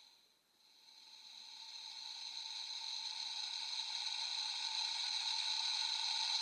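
A sound effect played through the CSM V Buckle toy belt's built-in speaker: a steady, fairly high-pitched electronic drone that fades in about a second in and slowly swells louder.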